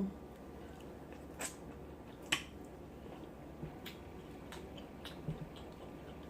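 Close-up eating sounds: a handful of sharp, wet clicks and smacks, about a second apart, as a sauce-coated shrimp from a seafood boil is bitten and chewed.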